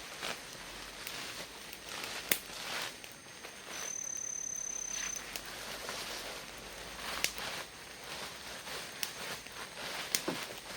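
Rustling, footsteps and scattered light knocks of someone moving about on the forest floor. A steady high thin whistle sounds once for about a second and a half, a little before the middle.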